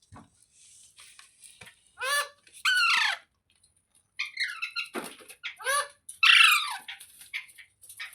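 Rose-ringed (ringneck) parakeet squawking and chattering: two short harsh calls about two seconds in, a run of chatter a little past halfway, then the loudest call, sliding down in pitch, near the end.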